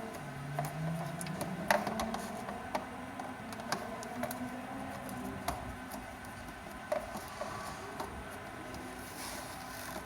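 Scattered small clicks and light knocks of screws and scooter frame parts being handled and worked loose by hand, several a second at irregular intervals.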